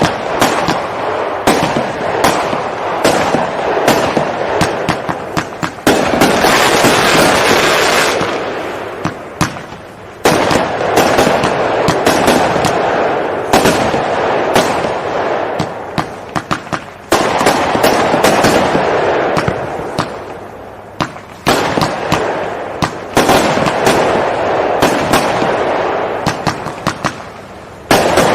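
WECO Black Ice fireworks cake (47 shots) firing: a run of sharp bangs in quick succession, broken every few seconds by a dense hiss that starts suddenly and fades away over a few seconds.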